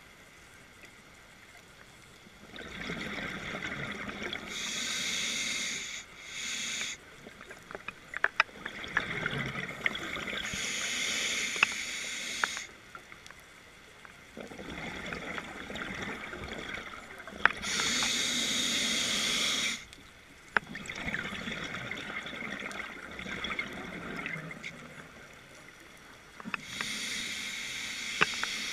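Scuba diver breathing through a regulator: a hissing inhale followed by a longer bubbling exhale, about four breaths, with short pauses between.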